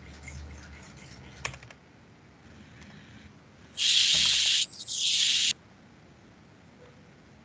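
Two loud bursts of hiss, each just under a second long and close together, in the middle; a single faint click comes just before them.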